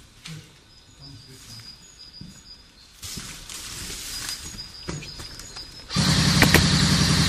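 Faint bird chirps over quiet outdoor ambience. About six seconds in, loud sustained automatic gunfire breaks out suddenly.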